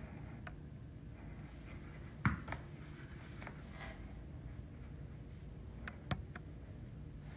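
Plastic cosmetic tubes and their flip-top caps being handled: a few scattered light clicks and taps, the sharpest about two seconds in and another about six seconds in, over a faint low hum.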